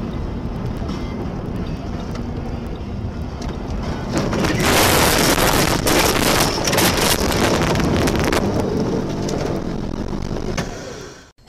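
A car's road noise heard from inside on a snowy road. About four seconds in, it breaks into a loud rush of snow spraying over the car, with many sharp crackling hits, as the car ploughs off the road into deep snow and brush. This lasts about four seconds and then dies away.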